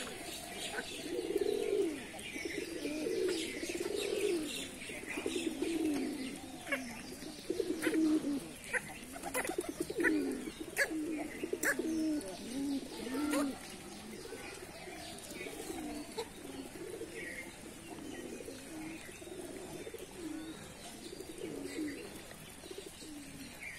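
Flock of domestic pigeons cooing over and over in low, rising-and-falling calls, softer in the second half. Sharp ticks of beaks pecking grain on concrete come through around the middle.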